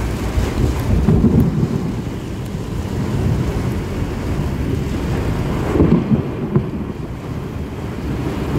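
Heavy rain on a moving car, heard from inside the cabin as a steady low-heavy roar, with low rumbles swelling about a second in and again around six seconds in.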